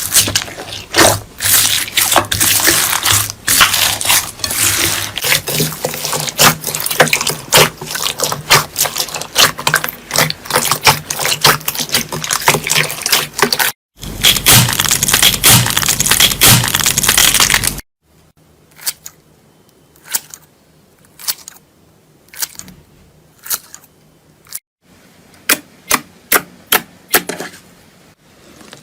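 Slime being squeezed and pressed in the hands, giving dense crackling and popping clicks. About 14 seconds in the sound changes to a denser squelching crackle, then after an abrupt cut near 18 seconds thins to sparser, separate pops.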